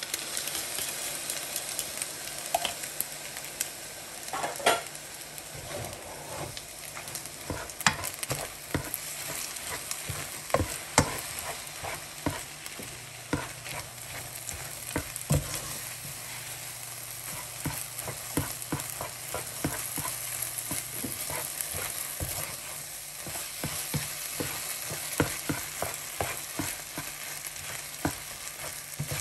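Egg noodles and scrambled egg sizzling in a hot nonstick frying pan while a cooking spoon stirs and tosses them, with irregular clicks and scrapes of the spoon against the pan over a steady sizzle.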